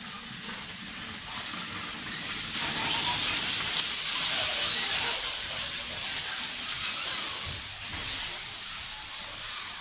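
Steady hiss, growing louder about two and a half seconds in, with a single faint click near the middle.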